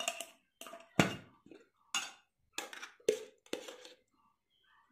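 Steel spoon scraping and clinking against the inside of a metal ghee tin while scooping ghee: a series of short knocks and scrapes, the loudest about a second in.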